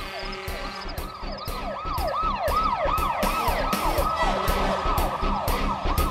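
An emergency siren in a rapid up-and-down yelp, growing louder over music with a steady beat of about two strikes a second.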